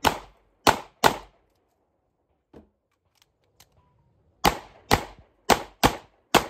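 Handgun shots fired in two strings: three quick shots, then after a pause of about three seconds, five more shots roughly half a second apart.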